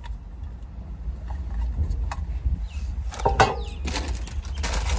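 A few light clinks of a steel spoon and tin as food is served, then louder rustling and knocking handling noise from about three seconds in, over a low steady rumble.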